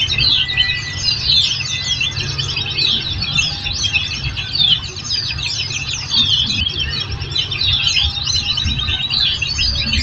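A group of white-eyes (pleci) singing together: dense, overlapping, high-pitched twittering and trills that run without a break, over a low background hum.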